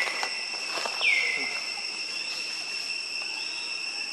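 Steady high-pitched drone of insects, with one louder call about a second in that drops in pitch and then holds level for about a second.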